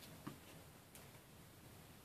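Near silence, with a few faint light clicks as a small metal tool and a laptop's copper heatsink are handled.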